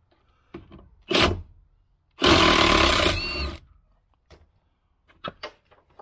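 Cordless impact gun on a T45 Torx bit, blipped briefly about a second in, then run for about a second and a half to spin out the upper rear seat-belt anchor bolt, followed by a few small clicks.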